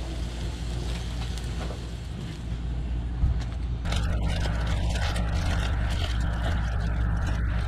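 A steady low hum throughout, with crinkling aluminium foil from about four seconds in as the foil around a cooked ear of sweet corn is unwrapped.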